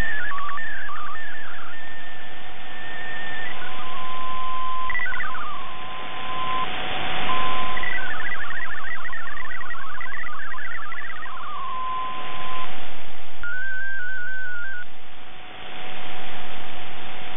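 MFSK digital data tones received off shortwave radio: runs of rapidly hopping, warbling beeps alternate with held single tones. They sit over a steady shortwave static hiss that swells and fades.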